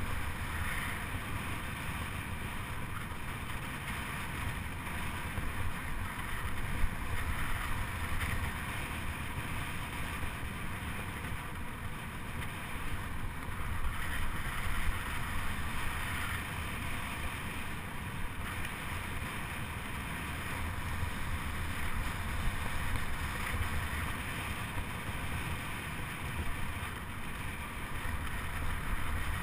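Steady wind rushing over the microphone, with the rolling hum of a fixed-gear track bike riding laps of the velodrome.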